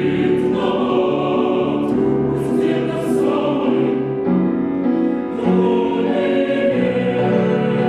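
Chamber choir singing sustained chords with piano accompaniment; the texture shifts about four seconds in.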